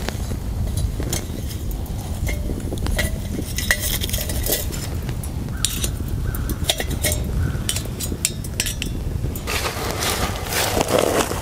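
Light metal clinks and taps as the pot stand of a Solo Stove wood-burning camp stove is handled and set onto the lit stove, with sticks pushed in among the fuel. A steady low rumble runs underneath, and the noise grows busier near the end.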